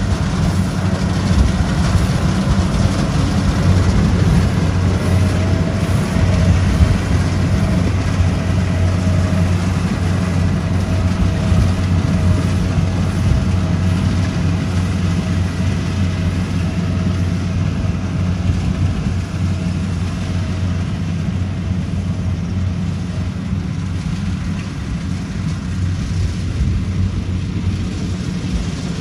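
Compact rice combine harvester's engine and threshing machinery running steadily as it cuts standing rice: a continuous low drone that eases off a little in the second half.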